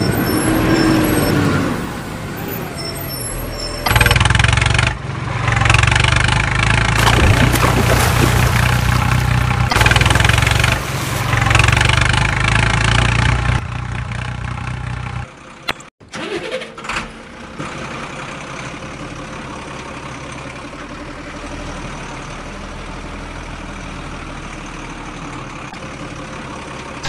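A truck engine sound, most likely a dubbed effect since the vehicles are plastic toys, runs with a steady hum. It is louder from about four seconds in to near the middle, briefly drops out, then carries on more quietly and evenly.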